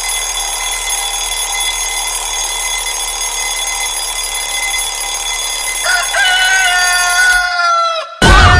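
Rooster-crow alarm tone: a steady hum, then near the end one long crow that holds and slowly falls in pitch. After a brief gap a louder sound starts just before the end.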